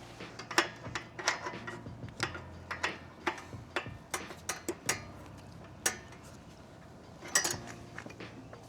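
Light metallic clicks and clinks at an irregular pace from motorcycle rear-brake parts being handled and fitted by hand. A short cluster of clicks comes near the end.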